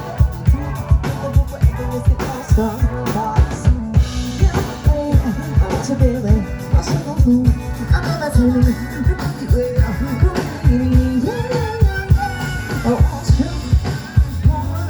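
Live band playing, with a drum kit's kick drum and snare hitting hard and regularly, and a weird, wavering sung vocal from the drummer over it.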